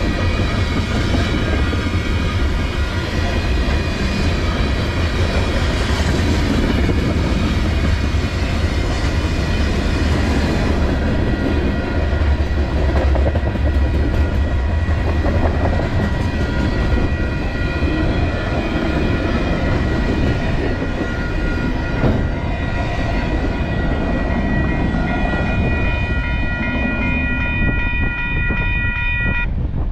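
Freight train cars rolling past close by: a steady loud rumble and clatter of steel wheels on the rails, with a steady high-pitched ringing tone running on top.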